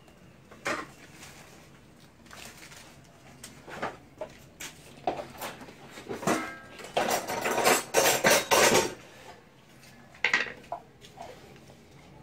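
Kitchenware being handled: scattered knocks and clinks of pots and utensils, with a spell of dense clattering that starts about six seconds in and lasts about three seconds.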